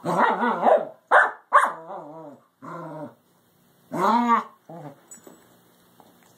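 Two dogs play-growling and barking: about six loud growling barks that rise and fall in pitch, packed into the first few seconds, then dying away to faint scuffling on the carpet.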